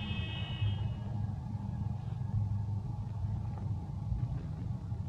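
Steady low rumble throughout, with a thin high-pitched note that stops about a second in.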